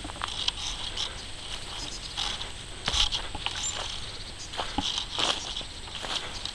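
Footsteps crunching irregularly along a leafy forest trail, over a steady high chirring of insects.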